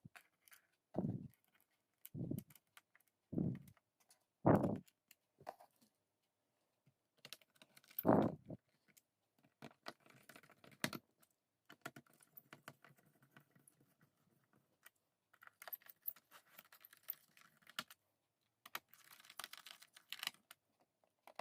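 Small screws being handled and driven back into a Lenovo ThinkPad T420's plastic underside with a hand screwdriver: scattered small clicks, taps and light scraping. There are several dull thumps in the first five seconds and another about eight seconds in.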